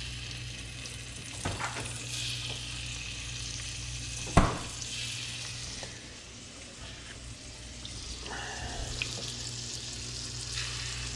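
Dove breasts sizzling as they are laid one by one into hot melted butter and garlic in a frying pan, a steady hiss. A sharp click about four and a half seconds in, with a couple of fainter ones elsewhere.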